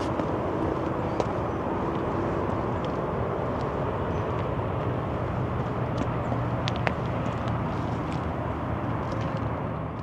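Steady rumble of city road traffic, with a few short high ticks, two of them close together about two-thirds of the way in.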